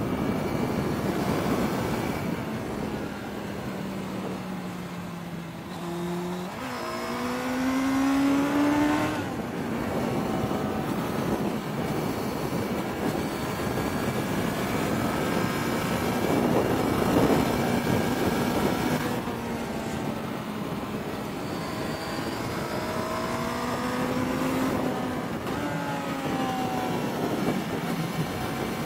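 Suzuki Bandit 600's inline-four engine pulling the bike two-up through a run of bends, heard over a steady rush of wind and road noise. Its pitch sags as the rider eases off, jumps up about six seconds in and climbs as it pulls again, then rises and falls several more times.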